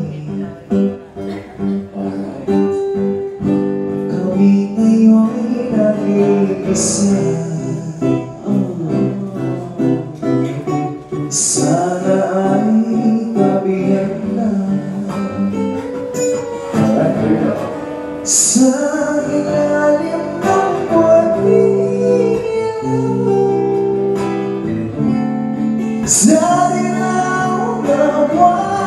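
Live acoustic guitar accompanying two vocalists singing a song into microphones.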